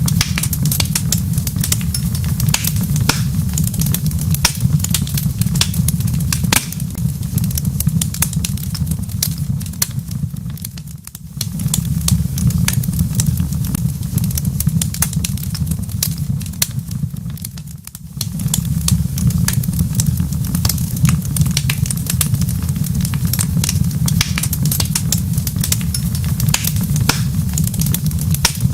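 Wood fire crackling in a fireplace: a steady low rumble with many sharp pops and snaps scattered through it. The low rumble dips briefly twice, roughly a third and two thirds of the way through.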